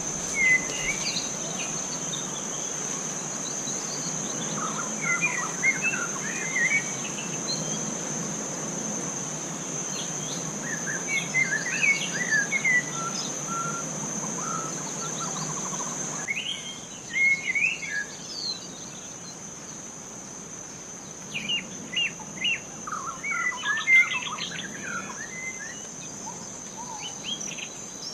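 Forest birds chirping and calling in short, quick phrases over a steady high-pitched insect whine. A background hiss drops away about halfway through.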